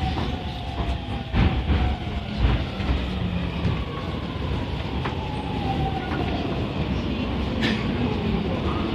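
Interior running sound of a JR East E231-500 series Yamanote Line train slowing down. The motor whine falls slowly in pitch as the train brakes, over a steady rumble, with a few wheel clacks over rail joints in the first three seconds.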